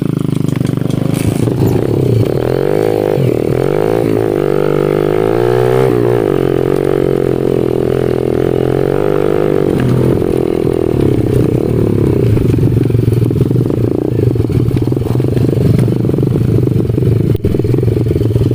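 A 110 cc pit bike's engine running under way. Its revs rise and fall several times in the first few seconds as the throttle is worked, then it runs steadily at higher revs.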